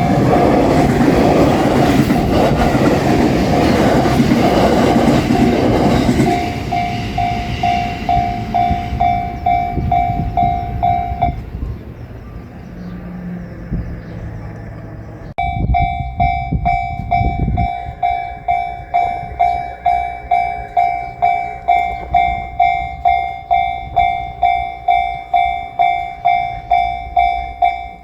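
A train runs over a Japanese railway level crossing while the crossing's warning bell rings about twice a second; the train noise fades and the bell stops about 11 seconds in. About 15 seconds in the bell starts again, with a low rumble for two seconds, as the crossing warns of the next train.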